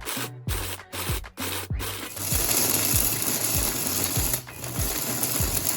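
Electric blender grinding crushed nuts into powder: pulsed in four short bursts, then run continuously from about two seconds in.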